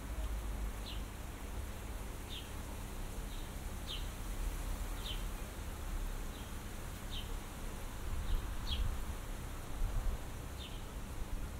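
A small bird chirping, a short high call repeated about once a second and sometimes doubled, over a steady low rumble of wind.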